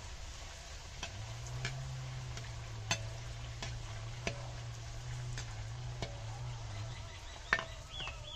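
Puchka shells deep-frying in very hot oil in a metal karahi: a steady sizzle. A perforated metal slotted spoon stirs them and clicks against the pan about eight times, the sharpest clack about seven and a half seconds in.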